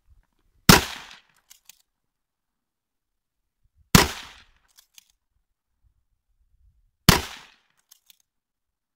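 Three rifle shots from a Finnish Mosin m/28-30 bolt-action rifle, about three seconds apart, each ringing out briefly. A couple of faint clicks follow each shot.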